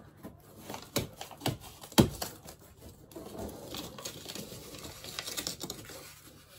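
Hand work with a caulking gun and old paper wallpaper being glued back to the wall: a few sharp clicks and knocks in the first two seconds, the loudest about two seconds in, then scratchy rustling as the torn paper is pressed down by hand.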